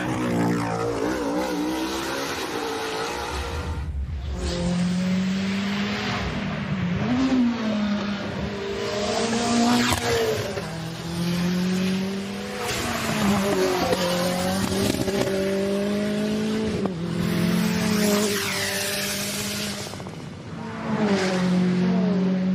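Race car engines revving up and down again and again under hard throttle, with tyre squeal.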